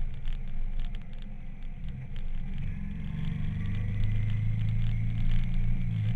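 Motorcycle engine running on the move, heard from the rider's seat over wind rush; the engine note strengthens and steadies about four seconds in.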